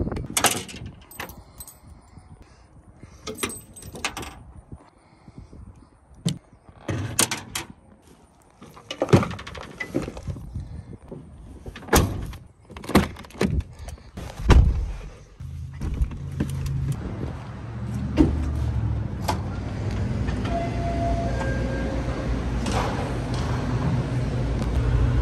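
Sharp knocks and clicks, like doors and gear being handled. About fifteen seconds in there is a heavy low thump, and after it a car engine runs with a steady low hum.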